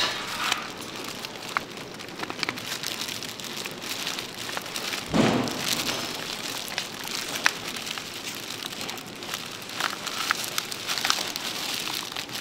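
Mayonnaise squeezed out of a large plastic pouch onto tuna in a steel bowl: scattered crinkles and clicks from the pouch over a steady crackling hiss, with a louder wet squelch about five seconds in.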